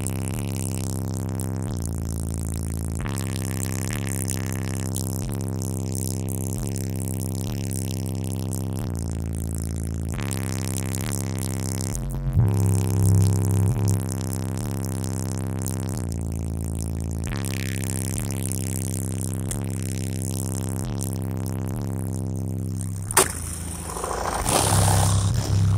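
Car stereo playing a hip-hop track through its subwoofers, with deep, repeating bass notes under the melody. Near the end a sharp click, then a stretch of noise over the music.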